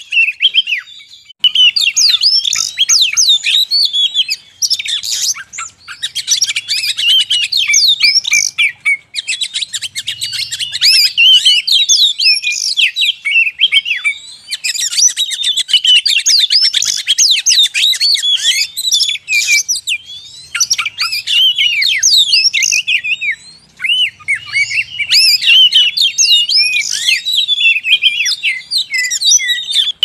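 Oriental magpie-robins (kacer) singing: a dense, fast run of varied whistles and chattering notes, almost without a break, with a few short pauses.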